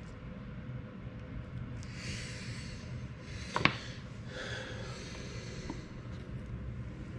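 Brief scratchy rubbing sounds, twice, over a steady low background rumble, with one sharp click about halfway through.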